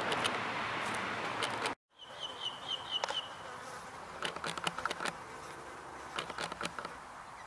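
Outdoor background noise: a steady rush that cuts off abruptly just under two seconds in. After that comes a quieter background with a quick run of about six high chirps lasting about a second, then scattered light clicks.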